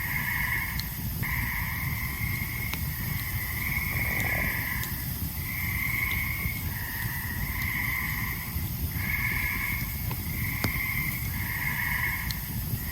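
A chorus of tree frogs trilling, one trill of about a second after another, overlapping without a break. Beneath them a campfire crackles, with a few sharp pops.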